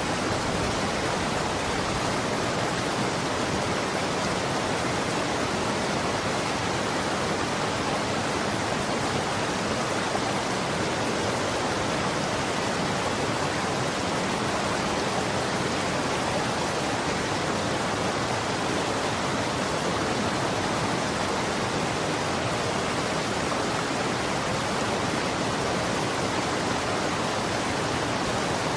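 Running water rushing steadily, an even hiss with no splashes or changes.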